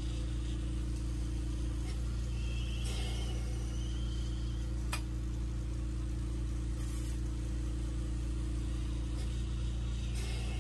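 Electric mandrel spinner's motor running with a steady low hum as it turns the mandrel, with a single faint click about halfway through.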